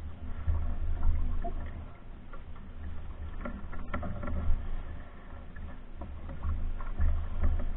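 A pack canoe being paddled across calm water: paddle strokes and water along the hull, with a low rumble that swells and fades every second or two and a few light knocks.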